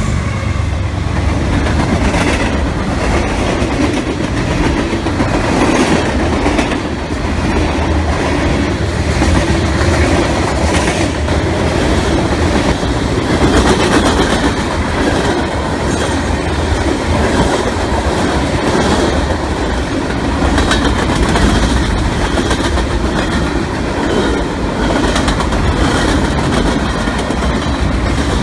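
Freight train cars rolling past close by: a steady rumble with the repeated clickety-clack of wheels over rail joints.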